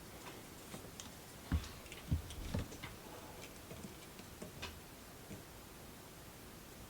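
A scatter of small clicks and taps from tools and small parts handled on a workbench, the loudest three coming in quick succession between about one and a half and two and a half seconds in.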